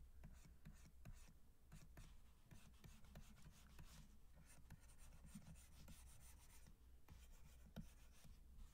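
Faint scratching of a stylus drawing quick sketch strokes on a drawing tablet, with many small ticks and taps as the pen lifts and touches down.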